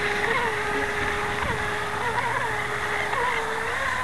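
Brushless electric motor of an RC jet boat (about 3600 kV, on an 11.1 V lipo) giving a steady high whine, its pitch bumping up and back briefly about five times.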